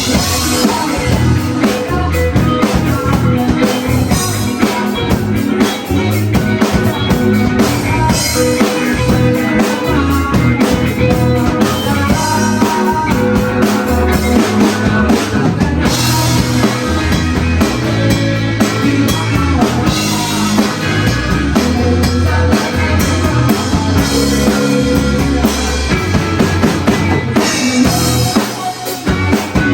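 Live rock band playing, with a full drum kit and guitar.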